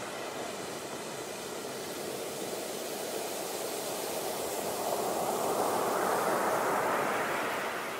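Rushing water of a waterfall, a steady noise that swells louder about two-thirds of the way through and then begins to ease.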